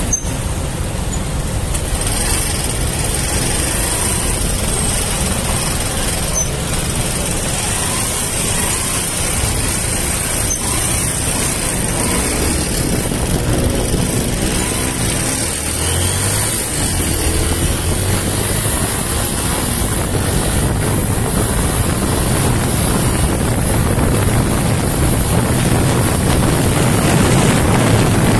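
Honda TMX 125's single-cylinder four-stroke engine running while the motorcycle rides through traffic, with wind rushing on the microphone. The engine note climbs and shifts about halfway through as the bike picks up speed.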